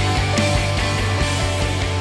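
Background music: a band song with held bass notes and drum hits.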